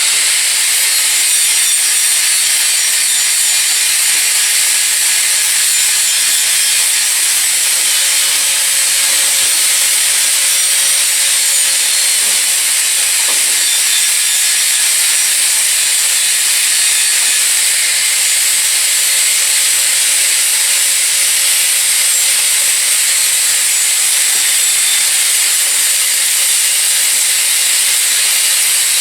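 Power tool running an abrasive stripping wheel against sheet metal, grinding off rust: a steady, loud hiss that runs without a break.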